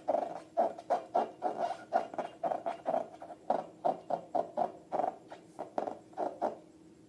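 Rubber balloons and slime being squeezed and handled: a run of short sounds, about three or four a second, that stops about six and a half seconds in.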